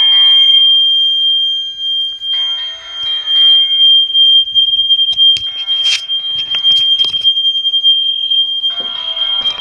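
Hotel fire alarm going off, a steady high-pitched tone that never lets up. A lower, buzzing tone joins it in stretches, and a few knocks come near the middle.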